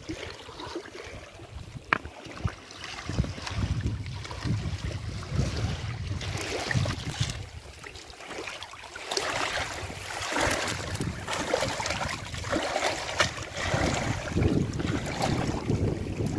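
Water splashing and sloshing in the shallows around a landing net as a hooked fish is brought in, in irregular surges. Strong wind rumbles on the microphone underneath.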